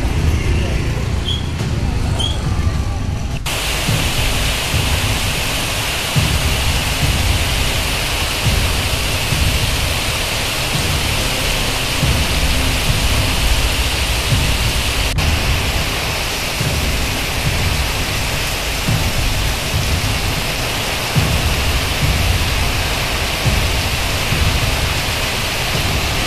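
Heavy rain pouring down in a loud, steady hiss, with gusts of wind rumbling on the microphone underneath. The rain hiss starts abruptly about three seconds in, after a stretch of low wind rumble alone.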